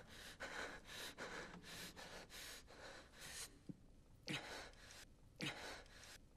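Faint, quick breaths, about three a second, slowing after a few seconds to separate deeper breaths about a second apart.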